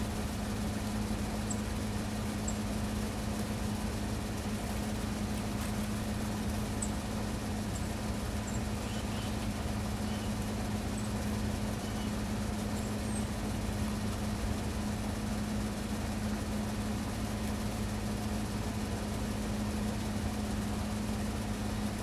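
Steady low mechanical hum of a running motor or engine, unchanging throughout, over outdoor background noise, with a few faint high bird chirps in the first half.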